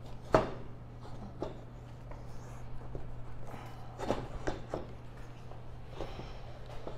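Hard plastic passenger seat of a Can-Am Ryker knocking and clicking against the trike's rear seat mount as it is worked into place: one sharp knock about a third of a second in, then a few lighter knocks around four to five seconds in, over a steady low hum.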